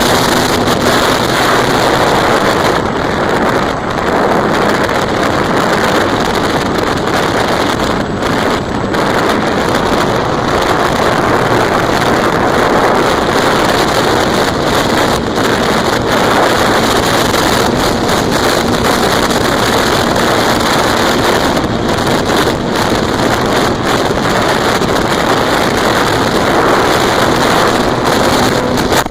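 Steady, loud rush of wind noise on the microphone, an even hiss with no distinct events.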